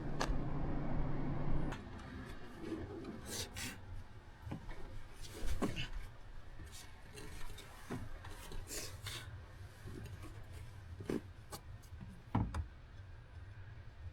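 A steady hum that stops about two seconds in, then scattered light clicks, knocks and rubbing, like hands handling parts, with a few sharper knocks.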